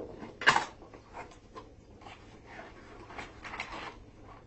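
Blade cutting through packing tape and cardboard: a short, sharp rip about half a second in, then scattered scratching, clicks and rustling of the box and packing.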